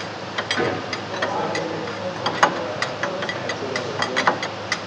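Wrench turning the nut on a Hyundai Porter's front strut rod, making short metallic clicks about three to four times a second over steady workshop noise. The nut is being backed off to shift the rod and set the caster.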